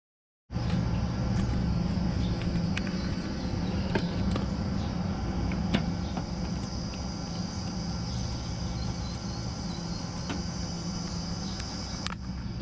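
About half a second in, a steady low motor hum cuts in, with a constant high buzz above it. A few light clicks of a screwdriver working the terminal screws of a split air conditioner's wiring block are heard through it.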